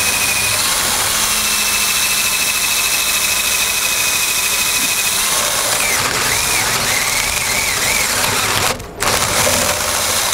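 DeWalt cordless drill with a 1-inch spade bit boring the latch hole into the edge of a wooden door, motor running with a steady whine. The pitch wavers about six seconds in as the bit bites and clears chips; the drill pauses briefly near nine seconds, runs again, then stops.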